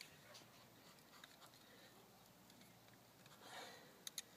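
Near silence, with a faint scrape and then two quick, faint clicks near the end from a hand ratchet pipe cutter being squeezed to work its blade into PVC pipe.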